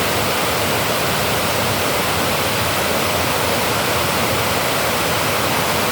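Water pouring over or out of a dam: a steady, loud rushing with no change.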